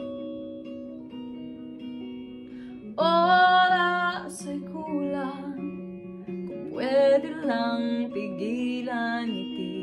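A woman singing to her own electric guitar: ringing picked guitar notes alone for about three seconds, then her voice comes in over them, pauses briefly, and returns about two seconds later.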